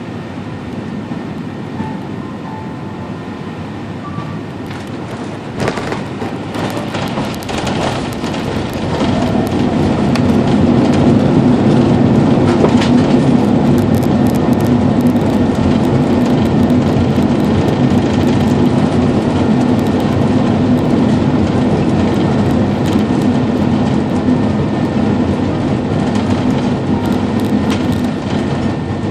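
Airbus A380-800 cabin noise on landing: a thump about six seconds in at touchdown, then the steady deep rumble of the landing roll, which swells to its loudest about ten seconds in and holds.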